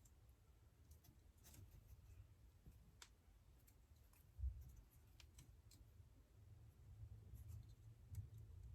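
Near silence with faint, scattered clicks from hands handling the Cat6 cable's wires and the plastic Ethernet jack, and one low thump about four and a half seconds in.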